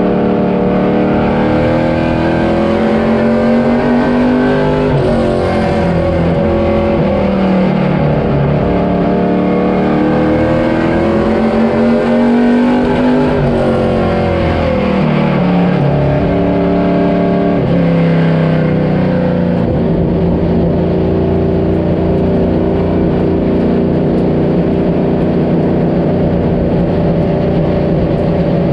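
Vehicle engine running under way, its pitch climbing slowly and dropping quickly twice, then holding steady.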